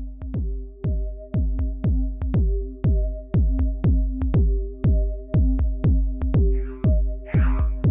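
Electronic background music: a steady kick drum about twice a second under a held synth chord, with hissy snare or hi-hat hits joining near the end.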